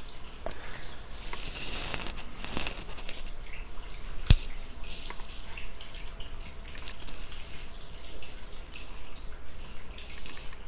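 Irregular crackling with scattered faint ticks, and one sharp click about four seconds in.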